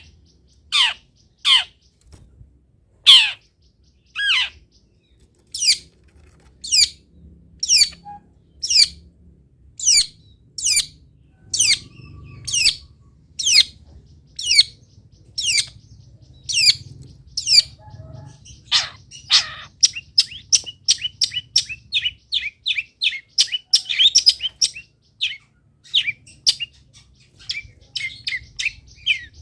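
Long-tailed shrike (cendet) giving a string of sharp, downward-sweeping calls about once a second, then a quicker, denser run of chirps about two-thirds of the way through.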